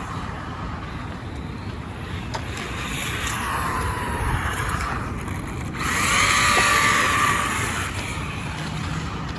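Electric RC car running, its motor whine rising and falling in pitch as it speeds up and slows, over a steady rush of tyre and wind noise. It is loudest about six to seven seconds in.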